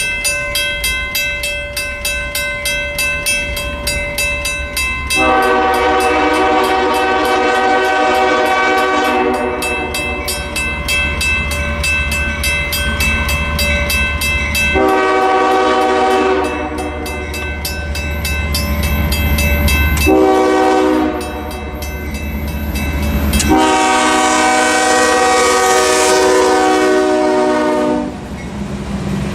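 Canadian Pacific locomotive's air horn sounding a chord in a sequence of long blasts with a short one near the middle, like a grade-crossing signal. Under it are the locomotive's engine rumble and the wheels clicking rhythmically over rail joints, which is the only sound for the first few seconds.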